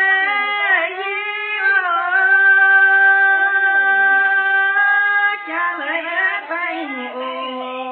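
Red Dao women singing a lượn folk song without accompaniment: an ornamented melody with a long held note in the middle, after which the tune moves on again.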